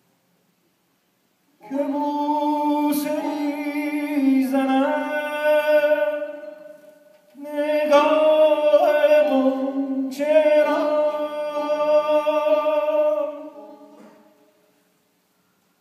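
Male voice singing Persian classical avaz, unaccompanied: two long held phrases, the first starting about a second and a half in and the second about halfway through, each fading away at its end.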